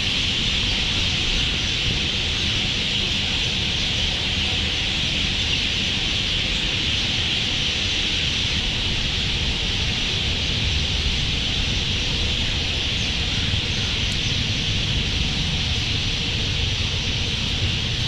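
Insects in the riverside trees chirring in a steady, unbroken high-pitched chorus, over a low rumble.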